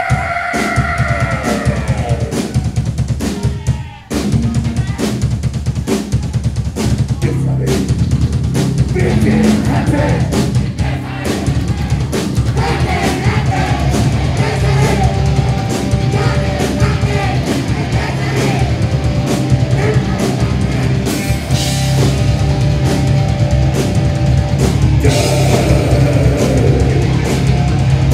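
Grindcore band playing live: very fast, dense drumming with distorted guitar and bass, breaking off briefly about four seconds in before the full band crashes back in.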